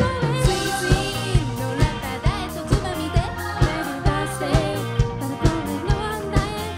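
Live pop band playing a song: a singer's lead vocal over drum kit, bass and other instruments, with a steady beat of about two drum hits a second.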